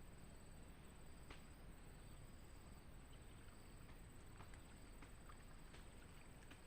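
Near silence: faint outdoor background hiss with a few soft, scattered clicks.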